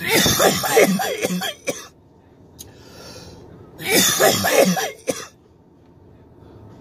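A man coughing hard in two fits, the second starting about four seconds in, with throat-clearing rasps between the coughs.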